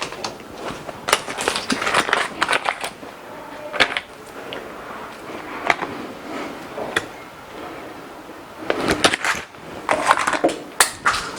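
Boiled potatoes being worked with butter in a bowl: irregular scraping and squishing strokes of the utensil against the bowl, in two busier spells near the start and near the end.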